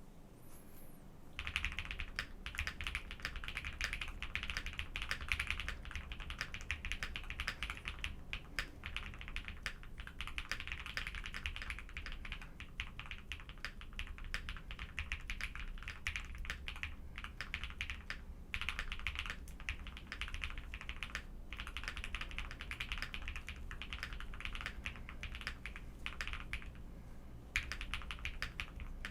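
Continuous fast typing on a Jelly Epoch mechanical keyboard with Durock POM linear switches: a dense run of keystroke clacks that starts about a second and a half in and stops briefly a few times.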